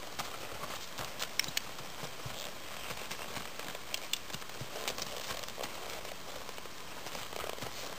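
Two horses stepping and shuffling on packed dirt, with scattered light clicks, over a steady hiss.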